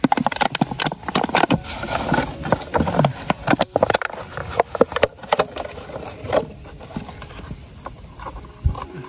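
Hands scraping through loose soil and dry leaves and handling a thin plastic bottle: irregular crackles, rustles and sharp clicks.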